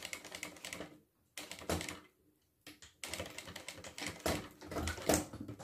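Industrial sewing machine stitching through a zipper's end tab: a rapid, even clatter of needle strokes in several short runs, separated by brief pauses.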